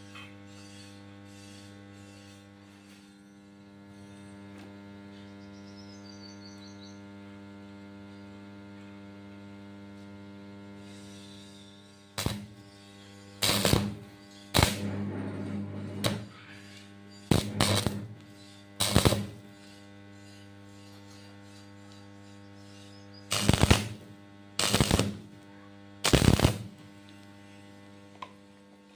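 Steady electrical mains hum, then from about 12 s in a series of about eight short stick-welding arcs: brief crackling bursts as the electrode is struck and run for a second or so at a time.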